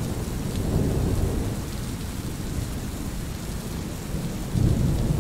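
Steady rain with low rolling thunder, the rumble swelling about four and a half seconds in.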